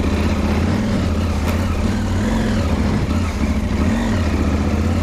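KTM 790 Adventure R's parallel-twin engine running at low revs on an off-road ride, with small rises and falls in engine speed around the middle and near the end, over a steady hiss.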